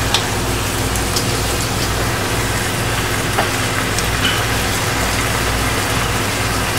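Pork butt steaks sizzling in oil in a skillet on high heat, a steady hiss as the pan juices cook off, with a few light ticks and pops. A low steady hum runs underneath.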